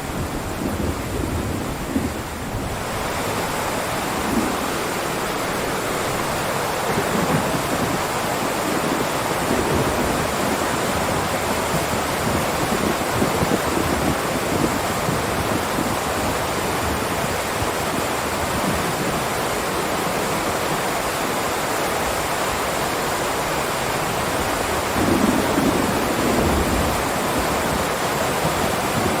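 Heavy rain downpour falling steadily as a dense, even hiss, with low rumbles of thunder near the start and again near the end.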